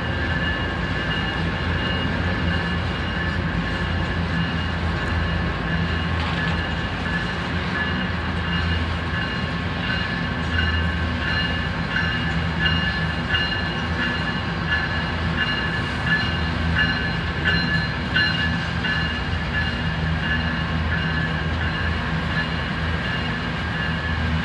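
BNSF diesel locomotives of a coal train running through a grade crossing, a steady low engine rumble under a constantly ringing crossing warning bell. Through the middle a run of clicks comes from the wheels over the rails as the locomotives pass.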